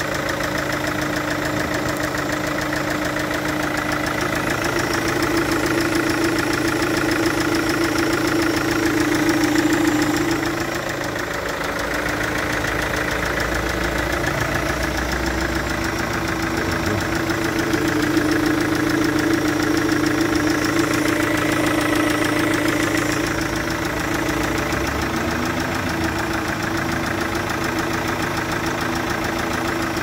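Chevrolet Captiva VCDi 16V four-cylinder common-rail diesel idling steadily. The engine is losing compression past one injector through a failed injector-to-cylinder-head seal, which blows combustion gas.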